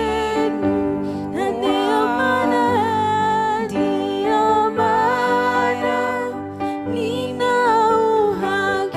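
Slow gospel worship song: a voice singing long, sliding notes over held accompaniment chords.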